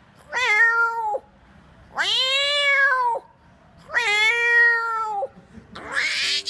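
A man imitating a cat: three long drawn-out meows, each rising and then falling in pitch, followed near the end by a harsh hissing sound.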